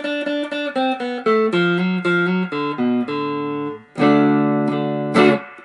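Electric guitar, Stratocaster-style, played with a pick: a quick run of single notes stepping down in pitch, then a ringing chord about four seconds in and a short chord stab near the end. It is a slide-guitar phrase worked out for ordinary standard tuning and played with a pick.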